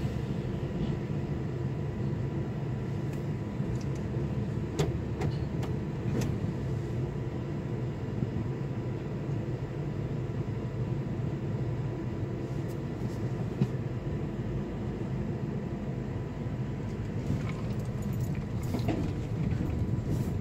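Steady low engine rumble heard from inside a vehicle's cabin, with a few faint clicks.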